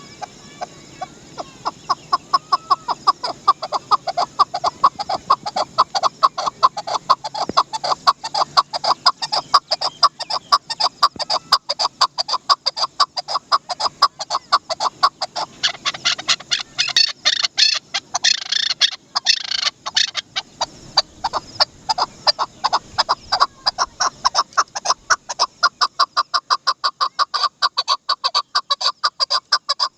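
Chukar partridge calling: a long, rapid series of short, sharp clucking notes, several a second, with a denser, harsher stretch just past the middle.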